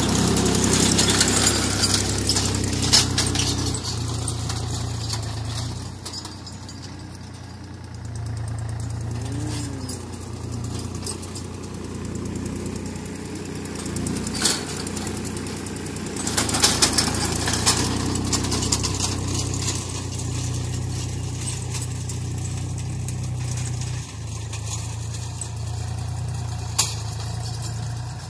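Swaraj 834 XM tractor's three-cylinder diesel engine running steadily under load while pulling a cultivator through hard ground. It is louder in the first few seconds and again a little past halfway as the tractor comes near, with a few sharp clicks.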